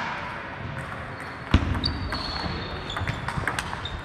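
Table tennis ball clicking off paddles and table during play in a large, echoing sports hall, with clicks from other tables mixed in. A sharper knock stands out about a second and a half in, followed by a quick run of light clicks.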